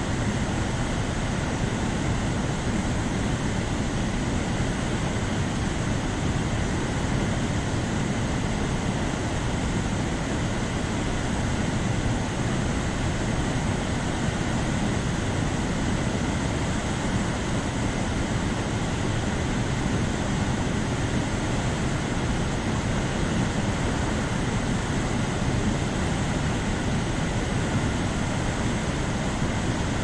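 Manavgat River's fast, turbulent water rushing and churning below the waterfall: a steady, deep, unbroken rush with no change in level.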